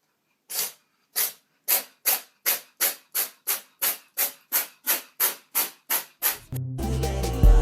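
A run of about sixteen short, sharp hisses, coming a little faster as they go, then background music with a beat starts near the end.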